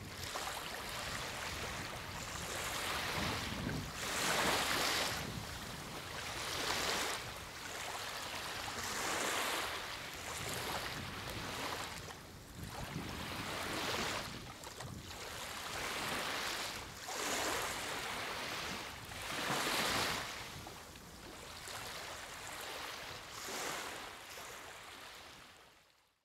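Small waves lapping on a sandy beach, each wash swelling and ebbing every two to three seconds. The sound fades out near the end.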